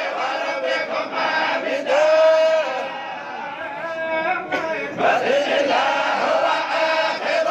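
A large group of men reciting the Quran aloud together in a chanted melody. Many voices hold long notes and glide between them in unison, softening briefly midway.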